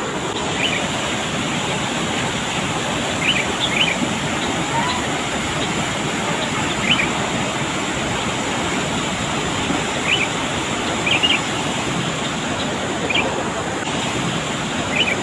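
Swollen river rushing over rocks in a steady roar of white water, with short high bird chirps every one to three seconds.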